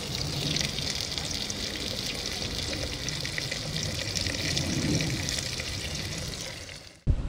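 Raw chicken pieces sizzling and frying as they are dropped into a hot clay pot (palayok) over a wood fire: a steady crackling sizzle that stops abruptly near the end.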